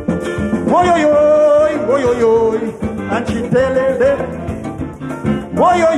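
Live calypso band playing a song's introduction: a lead melody of held, bending notes over a steady bass and drum groove, with new phrases swooping up about a second in and again near the end.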